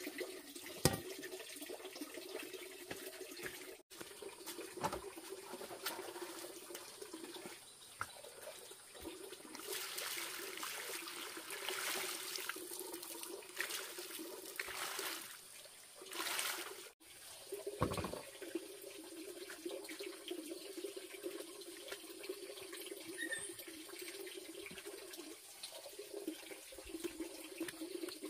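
Water running steadily, with water poured from a plastic basin over bunches of green bananas in the middle and a few sharp chops of a machete cutting banana hands from the stalk.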